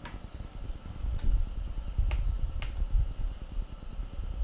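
A few sharp plastic clicks from hands on a UNIC UC46 mini LED projector as it is being switched on, over low thumps and rubbing from the unit being handled on the desk.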